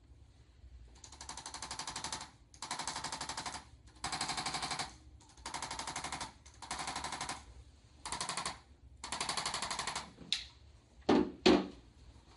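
A chiropractic percussion instrument tapping rapidly, about a dozen strokes a second, in seven bursts of roughly a second each. Two sharp thumps follow near the end.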